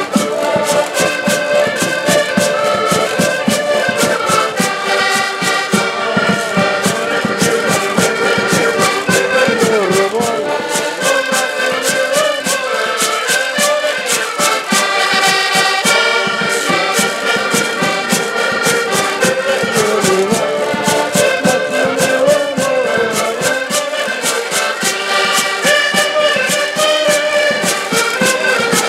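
Several accordions playing a lively Portuguese folk tune together, over a steady rhythmic clatter of percussion, with a small strummed guitar.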